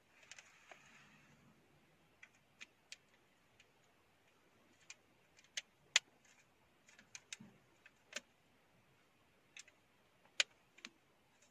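Small sharp clicks and taps at uneven intervals, a dozen or so, from hands handling a cylindrical USB car air purifier cup and its charging cable, with a soft rustle in the first second or so.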